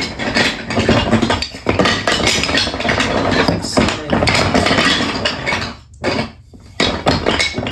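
Wooden toy railway track pieces clattering and knocking against each other and a plastic storage bin as hands rummage through it, with a brief pause about six seconds in.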